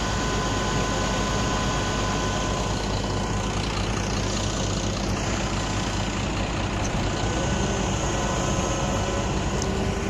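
Heavy truck and tractor diesel engines running steadily at low revs, a continuous low drone.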